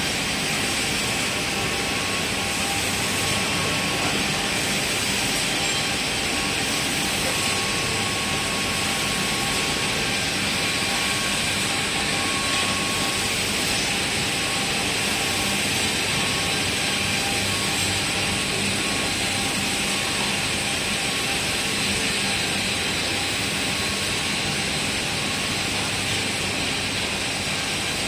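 Steady din of machinery running on a cabinet panel factory floor: processing lines and dust-extraction ducting, with a few faint steady hums running through the noise.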